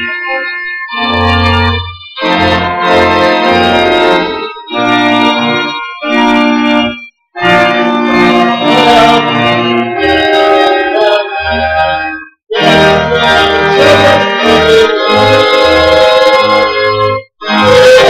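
Two-manual church organ playing held chords in phrases, with brief full breaks about seven, twelve and seventeen seconds in.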